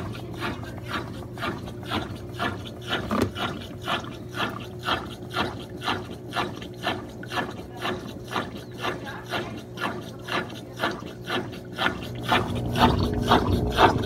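Brastemp Clean BWC11 top-loading washing machine running, with a regular swish-and-knock about twice a second over a steady motor hum. It grows louder about twelve seconds in.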